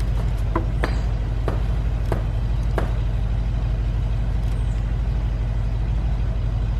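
A steady low motor rumble with a fast even pulse. Over it, in the first three seconds, several light metal clinks come from a bolt and hand tools being worked into place in the engine bay.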